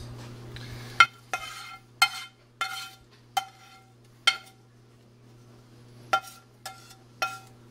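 Metal spatula clinking against a frying pan as cooked meat is scraped and knocked out into a baking dish: nine sharp clinks, each with a short ring, six close together and then three more near the end after a pause.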